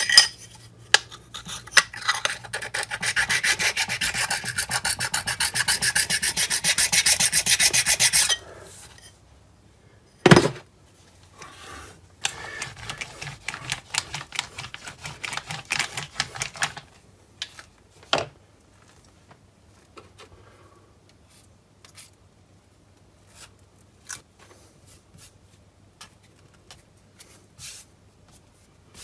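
Abrasive stone rubbed in rapid back-and-forth strokes along the edge of a flat steel machine part, deburring it, for about seven seconds. A single knock follows, then a second, quieter spell of rubbing, then a few light clicks.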